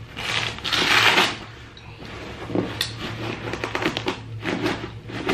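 Fabric gas mask carrier being handled and opened: a loud scratchy burst about a second long near the start, then rustling of the cloth and light clicks of straps and fittings.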